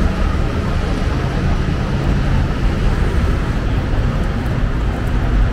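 City street traffic going past on a busy avenue, a steady rumble of vehicles.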